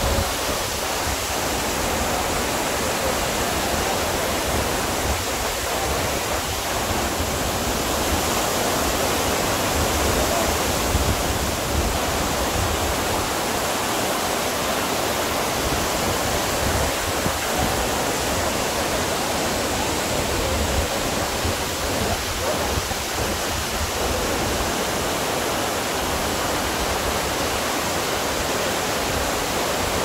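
Close-up of a tall waterfall, its water rushing steadily down a rock face.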